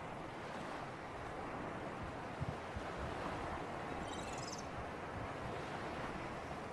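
Sea breeze and surf: a steady rush of wind and waves, with light wind buffeting on the microphone. A brief high-pitched sound comes about four seconds in.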